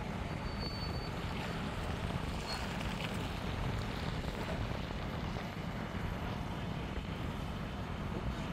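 Steady low rumble of wind on the microphone mixed with fire-truck engines running beside a burning grass back burn. A short high beep sounds about half a second in.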